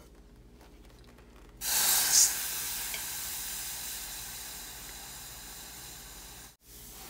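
Hot hand-poured .999 silver bar plunged into water to quench it: a sudden loud hiss and sizzle about a second and a half in, slowly fading over the following seconds. A few faint tong clicks come before it.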